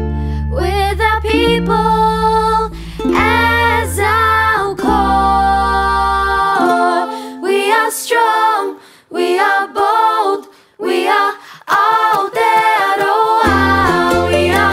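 Voices singing a song over ukulele-led backing. About six and a half seconds in, the accompaniment drops out and the voices carry on alone, sung a cappella; the backing comes back in near the end.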